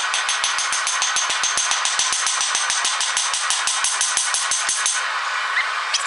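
Power hammer pounding hot steel in a fast, even run of blows, about eight or nine a second, with a metallic ring, stopping about five seconds in. A steady rushing noise runs underneath.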